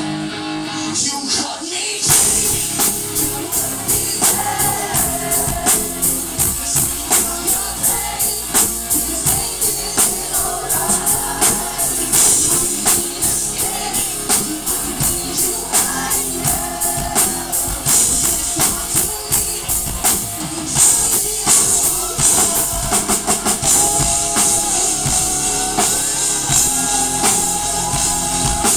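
Live rock band playing with a male lead singer, drum kit and guitar. The full band with drums comes in about two seconds in and plays on at a steady, loud level.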